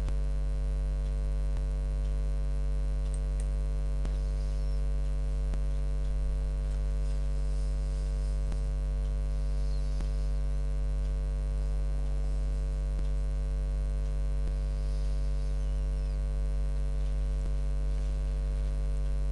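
Steady low electrical mains hum, with faint clicks about every one and a half seconds.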